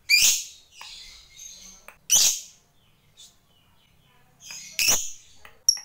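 Fischer's lovebird calling: three loud, shrill calls roughly two and a half seconds apart, with softer chirps between them and a short sharp chirp near the end.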